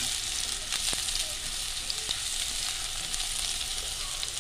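Sliced red onion and chopped garlic sizzling in cooking oil in a nonstick pan, with a few clicks and scrapes from a silicone spatula stirring them in the first second.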